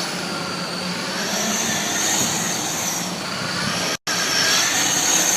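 Radio-controlled cars running, their motors giving a high whine that rises and falls in pitch as they speed up and slow down. The sound cuts out abruptly for a moment about four seconds in.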